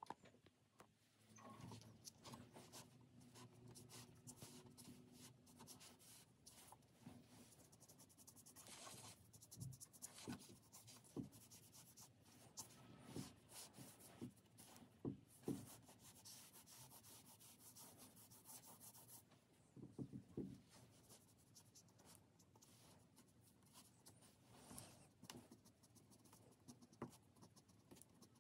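Faint scratching of a Sakura Pigma Brush pen's tip on drawing paper, in many quick, short hatching strokes.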